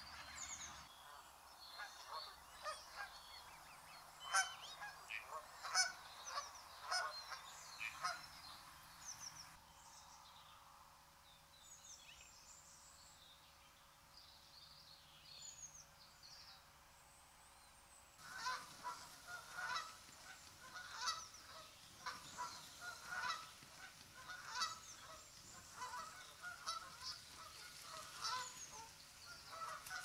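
Geese honking in many short, repeated calls. The honking thins out for several seconds in the middle, where a few higher, gliding bird calls are heard, then picks up densely again.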